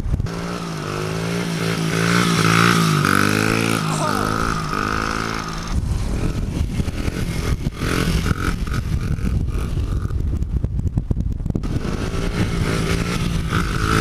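Honda CRF50 pit bike's small four-stroke single-cylinder engine revving up and falling back repeatedly during wheelie stunts, its pitch rising and dropping over the first five seconds or so, running rougher in the middle, and revving again near the end.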